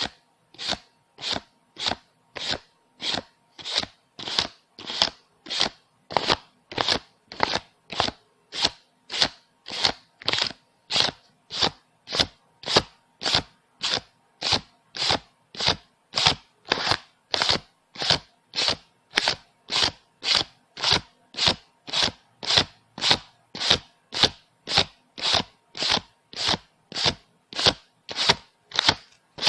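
Paper banknotes being counted by hand, each bill flicked off the stack in a short, crisp stroke, at an even pace of about two a second.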